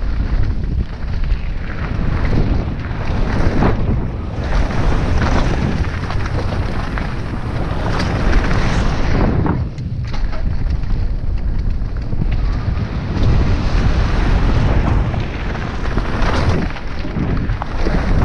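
Wind buffeting the microphone of a camera on a fast-moving mountain bike, with tyres rumbling over dirt and gravel and frequent short rattles and knocks from the bike over bumps. It eases briefly about halfway through.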